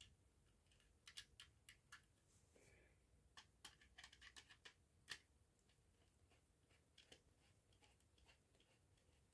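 Near silence with faint scattered clicks of small parts being handled, most of them bunched in the first half, while wires are being connected to the terminals of a fire alarm strobe and call point.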